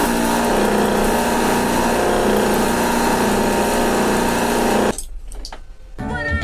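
A small motor or engine running loudly and steadily at a constant speed, cutting off abruptly about five seconds in.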